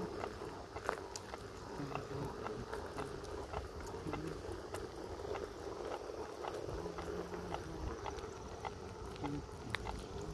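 Kingsong S18 electric unicycle riding along: a steady motor hum with wind rumble on the microphone and scattered light ticks.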